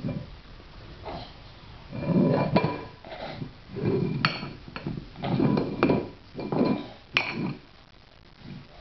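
Metal dog bowls knocked and pushed across a hard floor by a baby's hands: a series of clanks, each followed by a short metallic ring.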